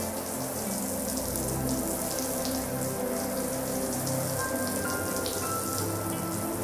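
Water sprinkling from a watering can's rose and pattering like rain onto a soaked, soapy rug, with background music playing underneath.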